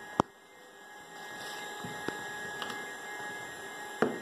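Two sharp knocks, one just after the start and one near the end, from the 3D-printed launcher being handled on a table. A steady hum runs under them.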